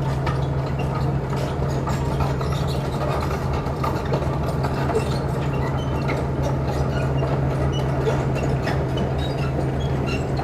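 Heavy construction machine's diesel engine running steadily as a constant low drone, with scattered small clicks and knocks over it.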